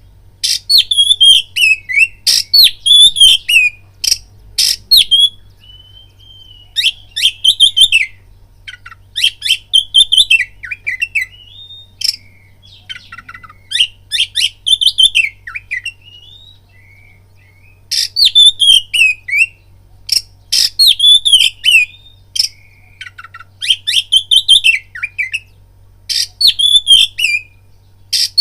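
Oriental magpie-robin (kacer) singing loudly in phrases of a second or two. The phrases are made of sharp clicking notes and downward-sweeping whistles, with short pauses between them and two longer breaks. This is the aggressive full song used as a lure to rouse other kacer.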